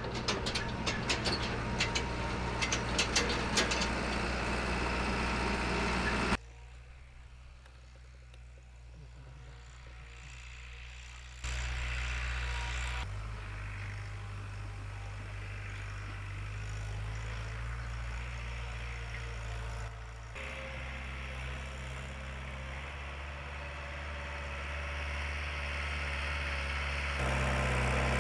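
Farm tractor engine running steadily, with abrupt jumps in level and tone where the shots change. A run of sharp clicks or rattles sounds over the engine in the first few seconds.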